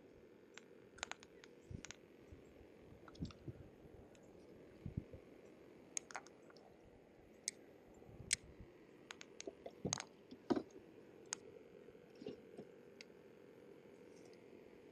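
Scattered small clicks and taps from handling fishing gear, irregular, over a faint steady background hiss, with a few louder knocks between about eight and eleven seconds in.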